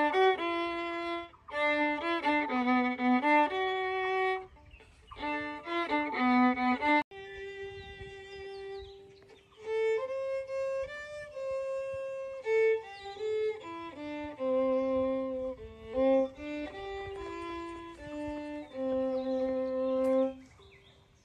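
Solo violin playing a melody. About seven seconds in, the playing cuts abruptly to a slower passage of longer held notes, which stops shortly before the end.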